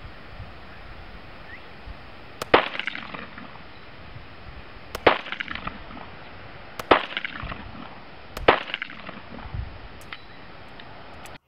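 Sig Sauer Mosquito .22LR semi-automatic pistol fired four single shots, about one and a half to two and a half seconds apart, each a sharp crack with a short ring after it, over a steady background hiss.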